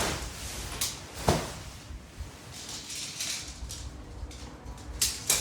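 Tent being pitched: nylon fabric rustling with a few sharp clicks and knocks, over a low steady rumble.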